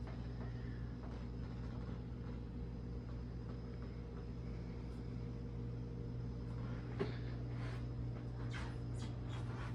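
Steady low electrical hum of room tone, with a few faint short rustles and clicks near the end, like an action figure and its fabric cape being handled.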